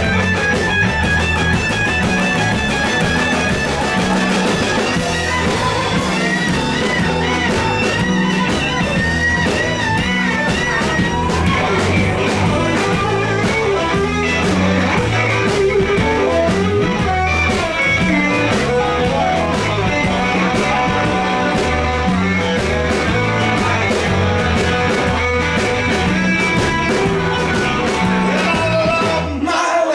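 Live blues-rock band playing an instrumental passage: a lead electric guitar bending and shaking notes over bass and a steady drum beat.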